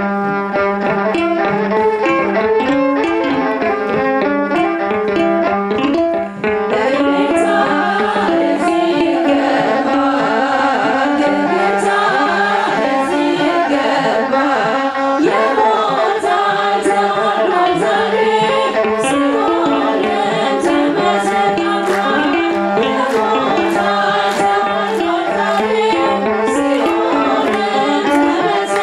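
Women's voices singing an Ethiopian Orthodox hymn (mezmur) together to the steady beat of kebero drums and hand clapping. The drum strokes come in more strongly about six seconds in.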